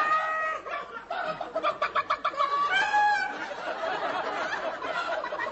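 Human voices clucking and squawking like chickens in place of words, used as a stand-in for swearing. Drawn-out squawks near the start and about three seconds in, with runs of quick clucks between them.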